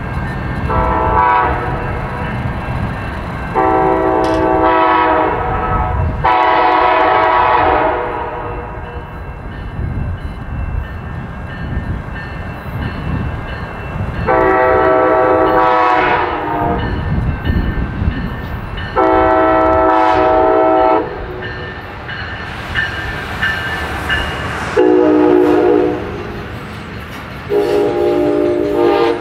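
A locomotive's multi-note air horn sounding over the rumble of a train. It gives a short blast and two long ones, then long, long, short, long, the standard grade-crossing signal.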